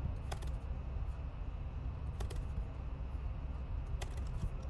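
A few sharp, isolated clicks of computer keyboard keys and a mouse button over a steady low hum.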